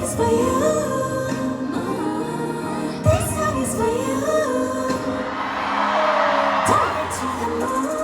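Live pop song played by a band with a female lead vocal. A rushing swell builds about five seconds in and fades near the end.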